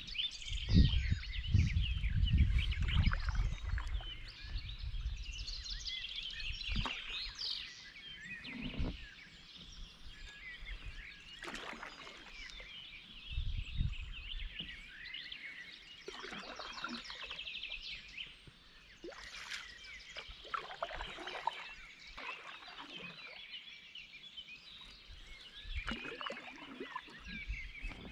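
Many small songbirds singing at once from the riverbank trees, a constant mix of chirps and warbling phrases. A low rumble in the first few seconds and a few brief soft knocks near the middle sit under the birdsong.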